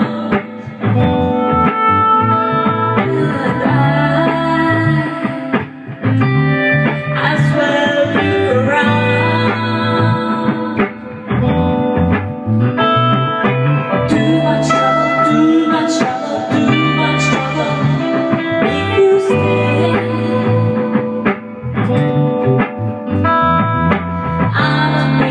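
Live band music played in a small rehearsal room: electric guitar lines over a bass guitar, with frequent picked notes and held chords.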